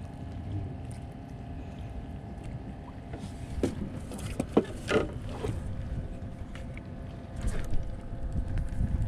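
Low rumbling water and wind noise aboard a small fishing boat at sea. Several sharp knocks come in a cluster about halfway through, and another comes near the end.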